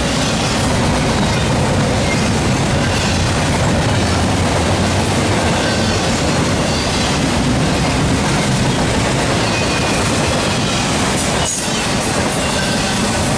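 Norfolk Southern freight cars rolling past: a loud, steady rumble of steel wheels on rail, with a faint high squeal from the wheels about midway through.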